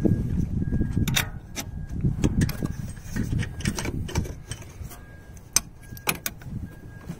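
Irregular metal clicks and clinks from a ratcheting wrench and the alternator being worked loose from its mounting bolts, over a low rustle of hands and sleeve against engine parts. The clicks come singly, not as a steady ratchet run, with a small cluster of them near the end.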